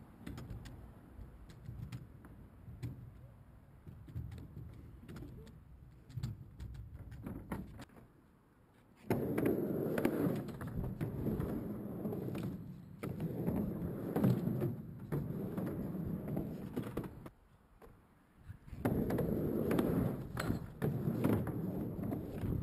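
Skateboard wheels rolling on a mini ramp, a rough rumble that comes in loudly about nine seconds in, drops out for a couple of seconds past the middle, and returns near the end. Before that, quieter rolling with scattered clicks, from a kid's scooter on the ramp.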